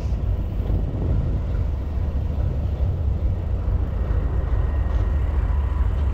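Wind buffeting the microphone of a camera on a moving bicycle: a steady, fluttering low rumble, with faint street traffic underneath.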